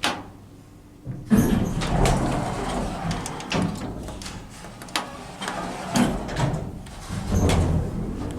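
Original Otis bottom-drive traction lift at work: a sharp click, then a run of clicks and clunks from its doors and relays over a steady low motor hum.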